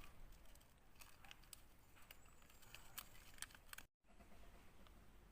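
Near silence: faint outdoor background with a few soft clicks, broken by a brief total dropout a little under four seconds in.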